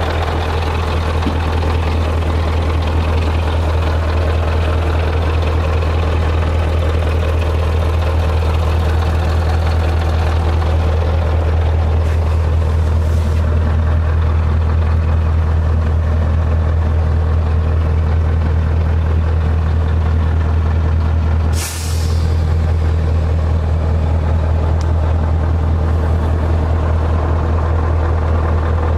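Scania R144G truck's 14-litre V8 diesel idling steadily, heard from inside the cab. About three-quarters of the way through there is one short hiss of compressed air.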